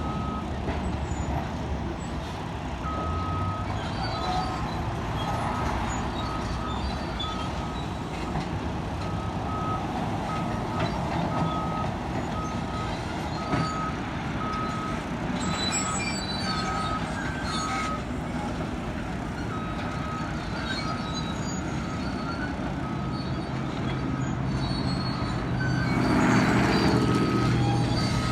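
Heavy diesel construction machinery (excavator and dump truck) running, with a back-up alarm beeping at a steady pace. Near the end the machinery gets louder.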